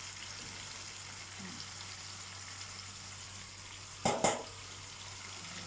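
Chicken deep-frying in a pan of hot oil, a steady sizzle. About four seconds in, two sharp knocks come close together.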